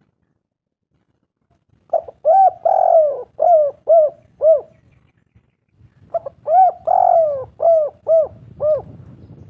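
Spotted dove cooing: two phrases of repeated arching coo notes, the first beginning about two seconds in and the second about six seconds in.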